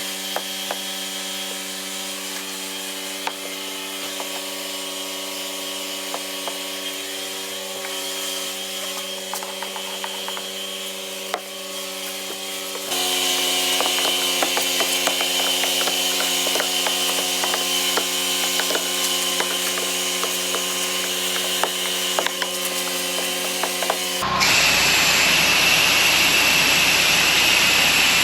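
Pressure washer engine running steadily, with scattered light clicks, getting louder about halfway through. A few seconds before the end, a loud hissing rush of spray joins in and covers it.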